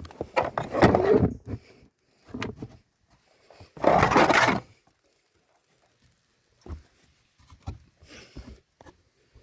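Bursts of scraping and rubbing, the loudest about four seconds in, followed by a few light knocks.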